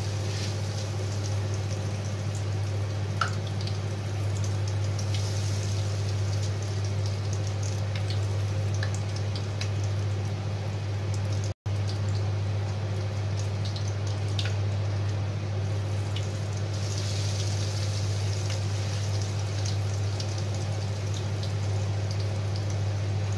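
Breaded potato balls deep-frying in a pan of hot oil: steady bubbling and crackling with scattered small pops over a steady low hum. The hiss of the oil grows louder in the last third.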